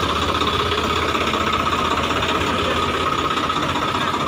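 Swaraj 855 FE tractor's three-cylinder diesel engine running steadily with an even diesel clatter.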